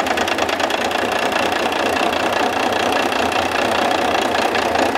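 International DT466 inline-six diesel engine idling with one injector line cracked open to bleed air from the fuel system, running with a fast, even knocking firing beat that stumbles as that cylinder loses fuel.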